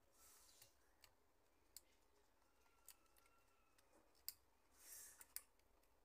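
Near silence with a few faint scattered clicks as a spring-loaded carbon brush holder is worked into a blender's motor housing by hand.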